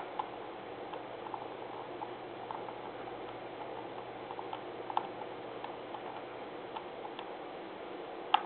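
Faint, irregular ticks and clicks of a computer mouse scroll wheel over a steady background hiss, with one sharper click near the end.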